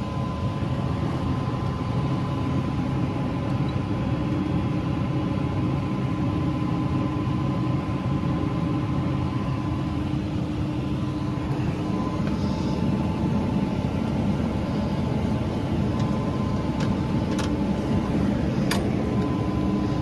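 Farm machine's engine running steadily, heard from inside the cab, with a faint steady whine above the drone and a few light clicks.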